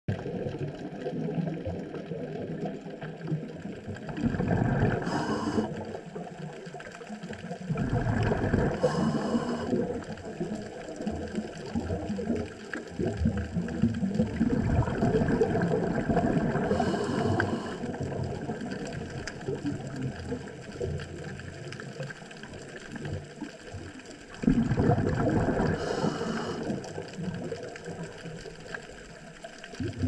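Underwater sound of a scuba diver breathing through a regulator: a surge of exhaled bubbles four times, every several seconds, some with a short hiss, over a steady water rumble.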